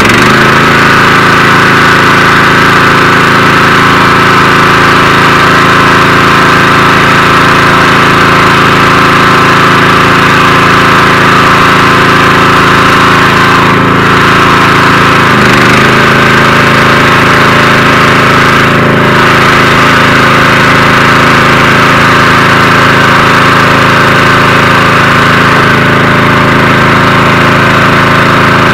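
The engine of a Platform Basket 18.90 tracked spider lift running steadily and loudly close by, with its pitch dropping slightly about halfway through.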